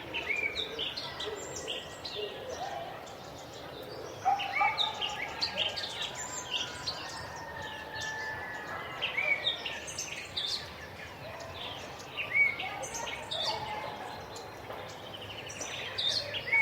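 Zoo ambience: many birds chirping and calling in quick, overlapping sweeping notes over steady background noise, with louder flurries of calls now and then.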